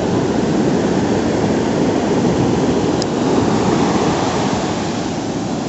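Heavy ocean surf from a hurricane swell breaking and washing ashore, a steady rushing noise.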